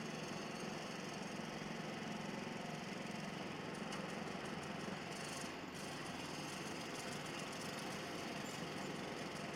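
Steady mechanical running noise, like a machine or engine running, holding an even level throughout.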